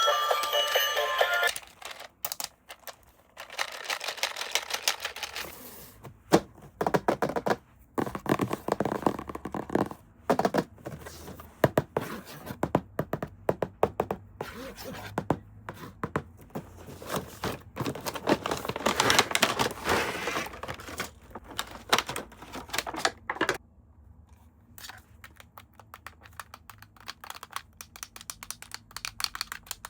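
Irregular clicks, taps and crinkling rustle as a toy and its plastic and cardboard packaging are handled in an unboxing. A short tune plays at the start and cuts off about a second and a half in.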